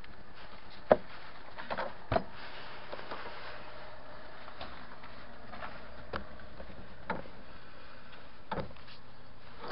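Sharp knocks and clunks of a car battery being slid out of its tray and lifted away, the loudest about a second in and a few lighter ones later, over a steady background hiss.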